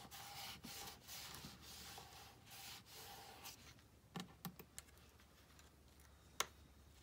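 Faint papery rubbing of hands pressing and smoothing a freshly glued paper pocket down onto a journal page, followed by a few light taps and one sharp click near the end.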